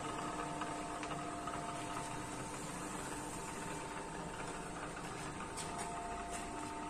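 PM-200 turret milling machine running, its 3 HP motor and spindle turning a twist drill that bores into a steel bar: a steady mechanical whine with several fixed pitches over an even hiss.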